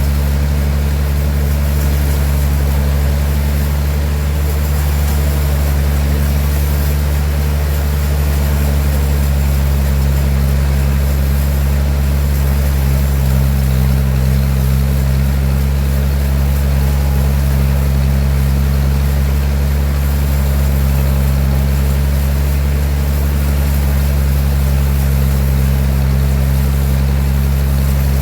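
Sawmill machinery running steadily with a deep, constant hum and a hiss of noise above it. The hum swells slightly about halfway through.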